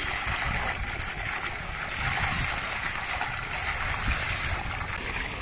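A stream of water pouring into a full metal pot and splashing over its rim, with steady running and splashing as fish are rinsed by hand in it.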